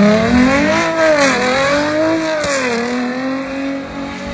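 Car engine revving hard as the car slides in snow, its pitch climbing, dipping, climbing again, then dropping back to a steadier note after about three seconds.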